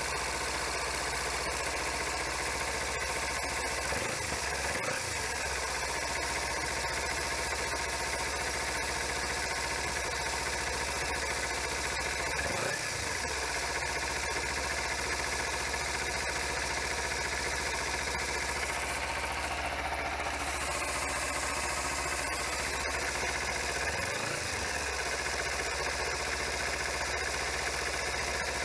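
2013 Kawasaki Ninja 300's parallel-twin engine idling steadily in neutral, run after an oil change so the fresh oil circulates through the new filter.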